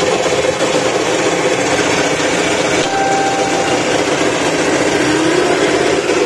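Electric two-wheel tractor's drive motor and gearbox running steadily, with a short rising whine a little after five seconds in.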